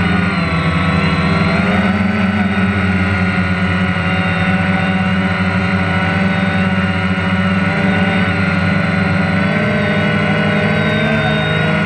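Drone's electric motors and propellers running steadily in flight, heard close up from the camera it carries: a loud, even whine of several pitches that drift slightly up and down as the motors adjust speed.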